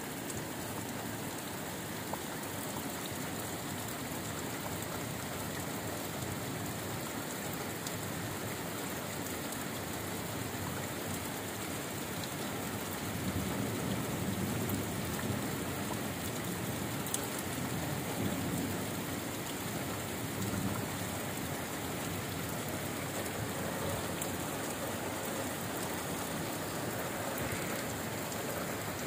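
Heavy rain falling steadily on leaves, grass and pavement, with a low rumbling swell about halfway through.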